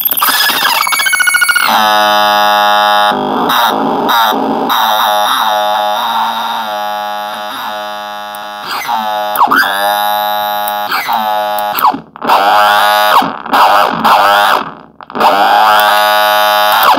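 Homemade DIY noise synthesizer built into a tin, played by hand on the controls on its lid: a loud, buzzing held tone with many overtones. Its pitch swoops a few times midway, it stutters on and off over the last few seconds, and then it stops abruptly.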